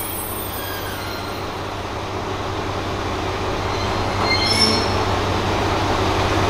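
Kanto Railway diesel railcar KiHa 315 rolling to a stop at the platform, then its diesel engine idling with a steady low hum. A brief high squeak comes about four and a half seconds in.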